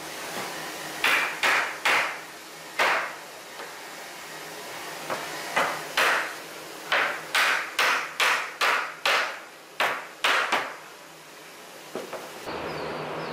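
Sharp wooden knocks, about fifteen, some in quick runs, as the joints of a wooden frame are knocked together to seat them.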